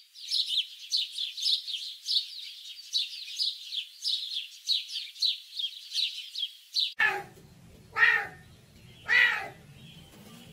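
A rapid string of short, high-pitched descending chirps, about four a second, from a small animal or bird. About seven seconds in it cuts abruptly to three louder pitched animal cries about a second apart over a low rumble.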